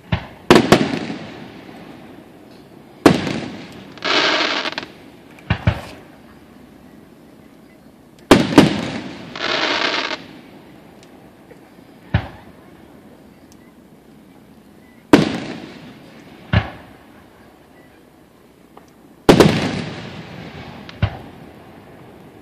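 Aerial firework shells bursting overhead: about ten sharp bangs at irregular gaps of one to four seconds, each trailing off in a rolling echo. Twice, a burst is followed by about a second of steady rushing noise.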